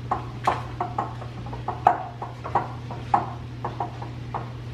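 Hands tossing catfish pieces in cornmeal fish breading in a glass bowl: irregular soft taps and clinks of fish and fingers against the glass, over a steady low hum.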